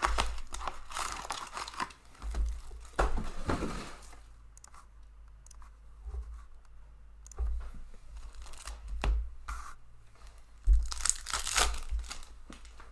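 Plastic shrink wrap crinkling and tearing as it is stripped off a box of hockey cards, then, after a quieter few seconds, foil card packs being torn open, the loudest tear near the end.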